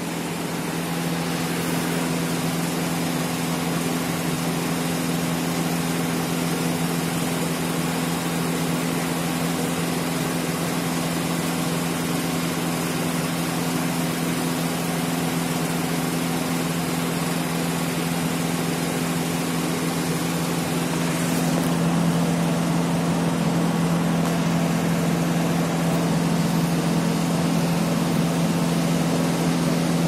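A steady mechanical hum with a low two-note drone, getting a little louder about 22 seconds in.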